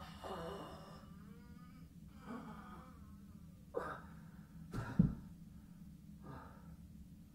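A man groaning and whimpering in strained, broken cries, with two sharp gasps about four and five seconds in, the second the loudest. These are acted sounds of pain during a werewolf transformation.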